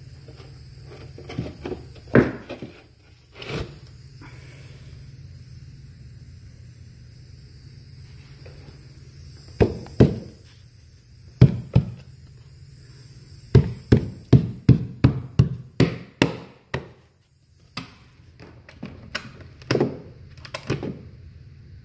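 Wooden stair treads knocked as they are fitted by hand: scattered single knocks, then a quick run of about eight knocks a little past halfway, and a few more near the end.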